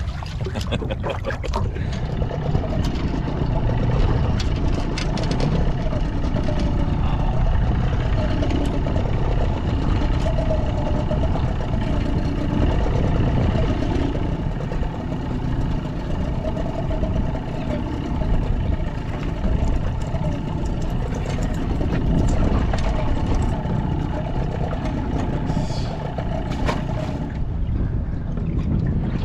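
Steady wind and water noise aboard a small boat at sea, mostly a low rumble, with a faint wavering whistle running through it.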